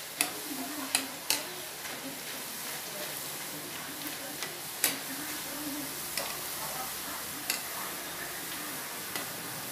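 Boondi (gram-flour batter drops) deep-frying in hot oil in a steel kadai: a steady sizzle and crackle. A few sharp metal clicks, most of them in the first second and a half, as the slotted ladle touches the pan.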